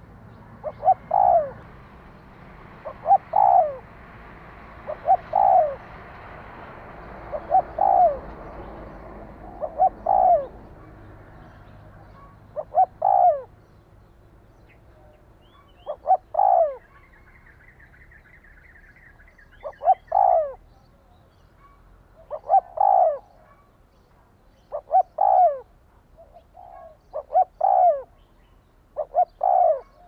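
Spotted dove giving its fast 'thúc' coo, the call keepers play to rouse other doves, repeated about a dozen times, each phrase two or three quick notes, with a gap of two to three seconds between phrases.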